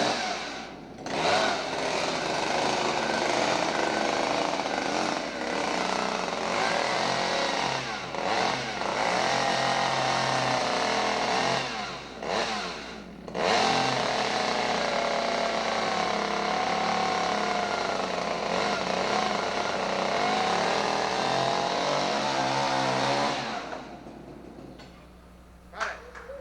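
Chainsaw running and revving, its pitch rising and falling. It drops back briefly about a second in and again around twelve to thirteen seconds, and dies away a few seconds before the end.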